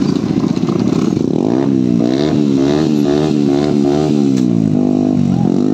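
Motorcycle engine revved up and down several times in quick succession, its pitch rising and falling, after a rough rumbling idle. Near the end it is held briefly at a steady rev, then drops.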